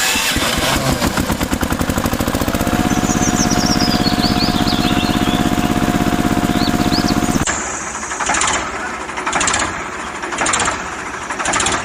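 Diesel tractor engine running with a fast, even chugging, birds chirping over it. A bit past halfway the sound drops abruptly, then comes in short surges about once a second.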